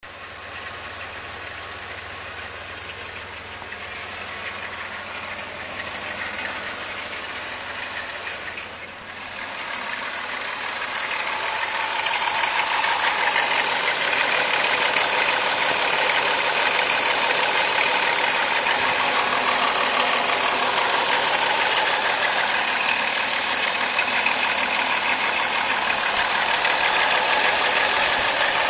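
Chrysler 3.3-litre pushrod V6 idling with timing chain noise, a rattle from a worn chain. It grows louder and brighter about ten seconds in.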